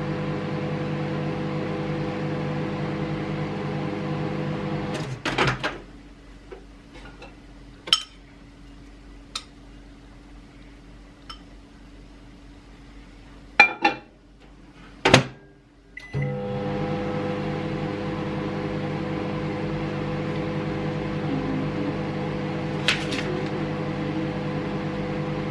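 A microwave oven runs with a steady hum while melting butter, then stops about five seconds in. A few sharp clicks and knocks follow before the microwave starts again at about sixteen seconds and hums steadily on, with one more click near the end.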